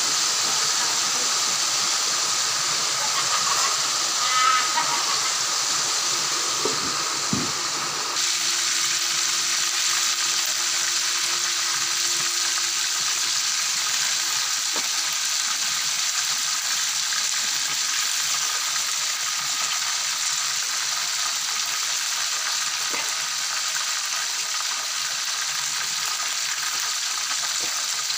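Pork pieces deep-frying in a wok of hot oil: a steady sizzle. There is a brief high tone about four seconds in and a couple of knocks around seven seconds in.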